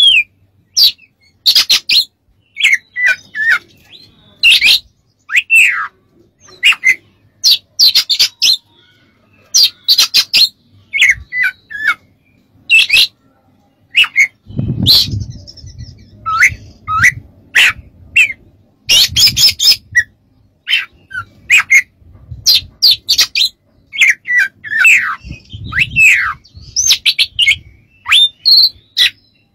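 Oriental magpie-robin singing a rapid, varied song: short whistled phrases with sliding notes broken up by harsh scratchy notes, in bursts with short gaps. A few low thuds are heard around the middle and near the end.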